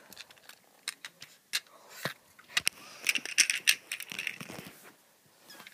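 Handling noise: scattered sharp clicks and small rattles, with a denser patch of rustling and clicking about three seconds in.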